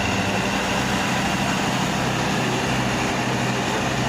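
Large diesel engine running steadily with a low, even hum.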